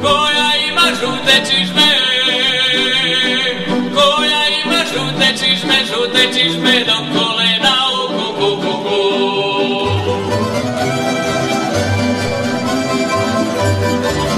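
A tamburica orchestra plays a folk song: plucked strings with the bass tamburicas, and a choir singing along. The low bass drops away early on and comes back strongly about ten seconds in.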